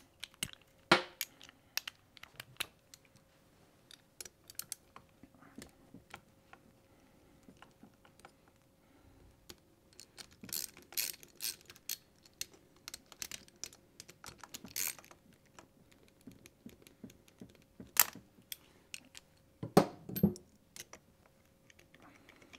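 Socket ratchet clicking in quick runs as the two 8 mm bolts holding the motorcycle engine's cylinder are undone. Now and then there is a sharper metal clink or knock from the tool and the bolts.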